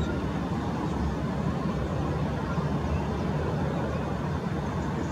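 Boeing 737-800 jet engines (CFM56-7B turbofans) at taxi power, heard from a distance as a steady low hum under a noisy hiss.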